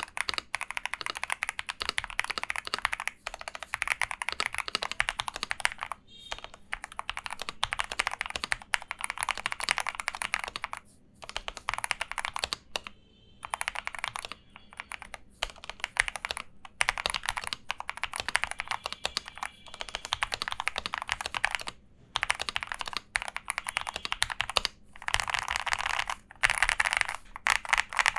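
Fast typing on a Monka AE75 75% gasket-mount mechanical keyboard modded with tempest tape and lubed stabilizers: dense runs of keystroke clacks broken by a few short pauses.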